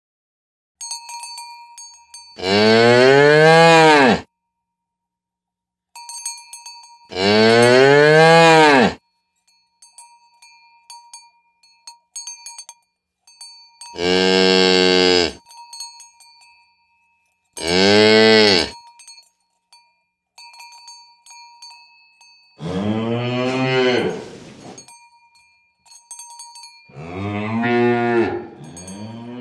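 Cows mooing: about seven long, loud moos a few seconds apart, the pitch arching up and down in each. A small bell tinkles faintly between the moos.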